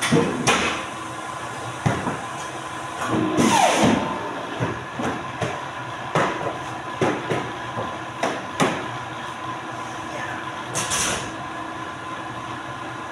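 Stacks of paper being knocked and slid on the table of a Polar 115 guillotine paper cutter: irregular sharp thumps and a couple of short sliding rustles over a steady machine hum. The cutter's air table blows too weakly, so the heavy paper drags as it is pushed.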